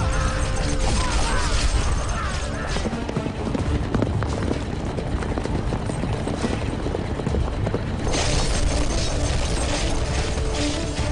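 Film battle soundtrack: music over the din of a charging army, with soldiers shouting and horses' hooves.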